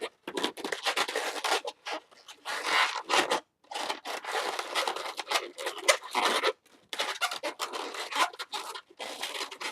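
Latex 260 modelling balloons rubbing against each other and against the hands as they are twisted into a loop twist, in irregular bursts with short gaps.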